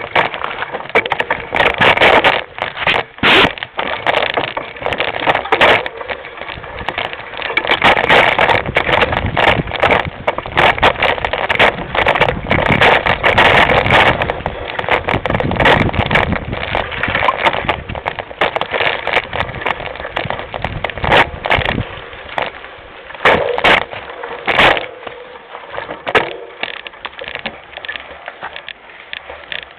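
Mountain bike riding over a rough dirt trail, picked up by a camera mounted on the bike's front end: continuous rattling and clattering with many sharp knocks as the wheels hit bumps.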